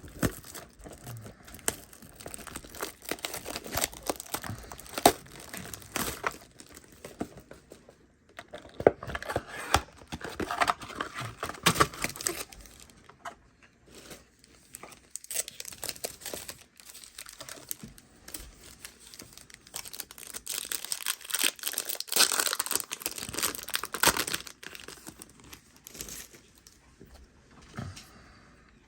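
Foil booster pack wrapper crinkling and tearing as it is worked open by hand, a stubborn pack that is hard to open. Irregular crackles and snaps come and go, dying away over the last few seconds.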